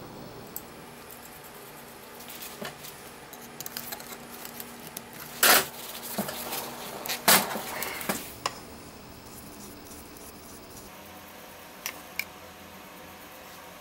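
Scattered clicks and knocks of metal parts being handled on a workbench, with two louder knocks in the middle and a few light ticks near the end.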